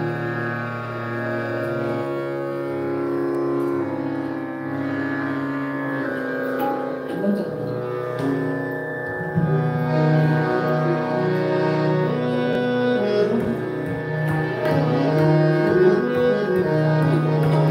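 Indian devotional abhang music: long held melodic notes over a steady drone, with tabla playing.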